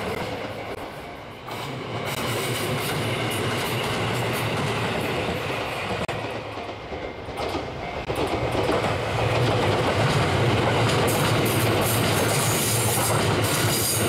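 Two JR West electric trains passing in turn: a Series 223 commuter train comes through from about two seconds in, then a Series 289 limited express from about eight seconds in, louder.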